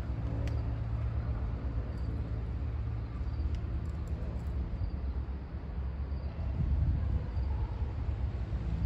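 Steady low rumble of a distant approaching freight train's diesel locomotives, growing a little louder near the end.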